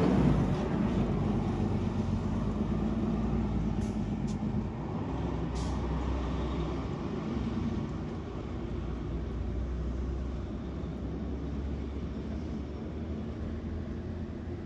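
Heavy fire engines' diesel engines running as they pull away, a low rumble that fades steadily.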